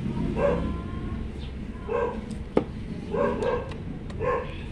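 A dog barking, about five short barks spread out, with one sharp click about two and a half seconds in.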